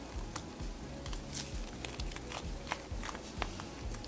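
Stiff, clay-like cloud slime being stretched and kneaded by hand, giving scattered small crackles and pops at irregular intervals as it pulls apart and folds.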